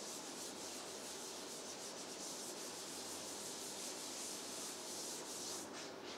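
Whiteboard eraser wiping across a whiteboard: a steady, fairly quiet rubbing made of repeated wiping strokes.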